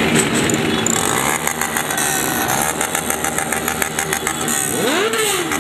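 Several motorcycle engines running at low speed in a tight group, one of them revving up and dropping back about five seconds in.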